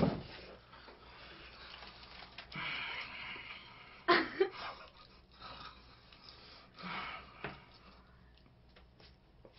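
People eating at a table: breathy exhales, with a few sharp clicks and knocks about four seconds in and again near seven seconds.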